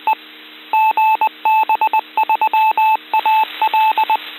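An amateur radio repeater's identification beeps, received through an FM radio: one steady mid-pitched tone keyed on and off in long and short beeps, like a Morse-code callsign, over steady radio hiss and a low hum.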